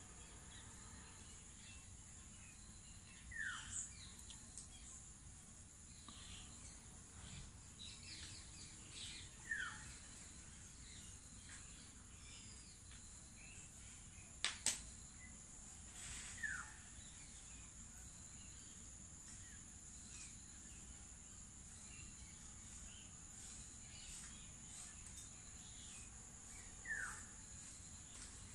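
Steady high-pitched insect drone, with four short falling calls spread through it and a sharp click about halfway through.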